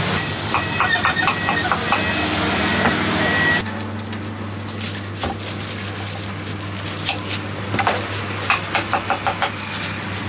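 Knife cutting a peeled mango on a wooden chopping board, ending in a quick run of chopping knocks, about three or four a second. A steady low hum runs underneath.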